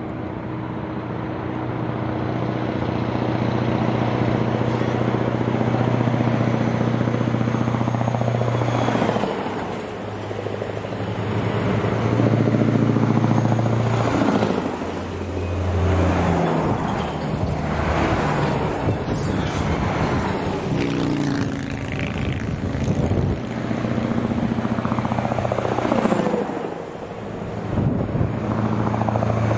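Heavy diesel semi-trailer trucks in a convoy driving past one after another. Each truck's engine drones steadily and swells with a rush of tyre and wind noise as it goes by, several times over.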